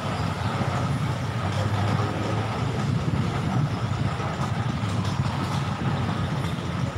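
Steady low rumble of motor-vehicle engines, unchanging throughout.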